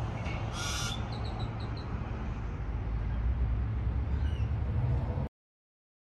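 A bird calls with a short bright call about half a second in, then a quick run of five or six short high chirps, and two fainter notes near four seconds, over a steady low outdoor rumble. The sound cuts off abruptly a little after five seconds.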